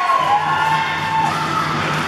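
Spectators cheering and shouting during play, with long drawn-out high-pitched yells over a crowd background.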